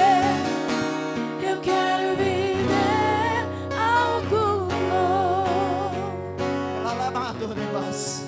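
Worship music: a melody of long, wavering notes over acoustic guitar and sustained chords.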